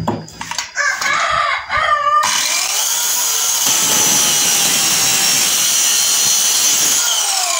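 JLD corded circular saw starting about two seconds in and making a bevel cut through a wooden board. It runs steadily with a high whine under load, then is released near the end and its pitch falls as it spins down.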